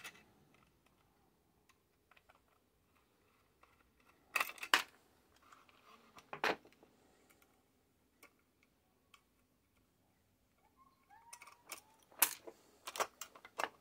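Light clicks and metallic rattles from a radiotelephone's metal chassis, circuit board and small screws being handled while it is taken apart. A pair of sharp clicks comes about four and a half seconds in, another at six and a half, then a quick run of clicks near the end.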